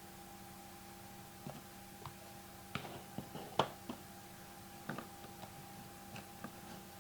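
Scattered light clicks and taps of trading cards and their plastic holders being handled on a table, the sharpest about three and a half seconds in, over a faint steady electrical hum.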